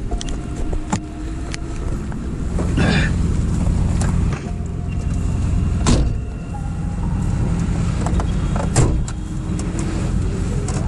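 Car engine idling, heard from inside the cabin. Knocks and rustles from someone climbing in and settling, the sharpest about six seconds in and again near the end.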